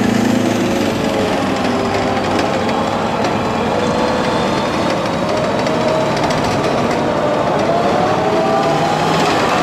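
Tracked armoured vehicles driving past close by: diesel engines running under the rapid clatter of steel tracks on the road. An M270 MLRS tracked rocket launcher passes within a few metres, and a whining tone rises near the end.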